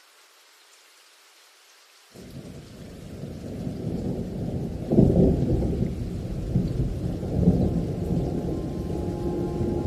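Light rain hiss, then a deep rumble of thunder that starts suddenly about two seconds in, swells to its loudest about halfway and keeps rolling. A low sustained musical tone comes in near the end.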